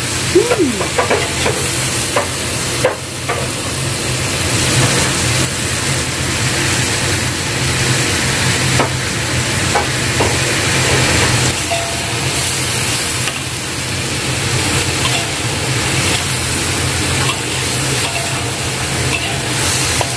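Sliced bamboo shoots stir-frying in a wok: steady sizzling, with a metal spatula now and then scraping and knocking against the wok, most often in the first few seconds.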